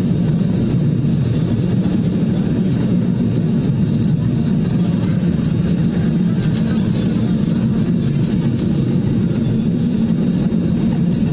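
Vintage 1909 ASEA tram running on its rails: a steady low rumble of wheels and motor, with a few faint sharp ticks.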